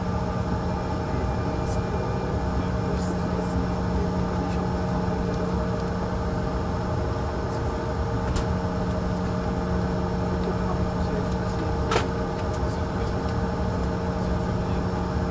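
Cabin noise of a Bombardier CRJ1000 taxiing: a steady drone from its rear-mounted turbofans at taxi power, with a low hum and several steady tones. A single sharp click sounds about twelve seconds in.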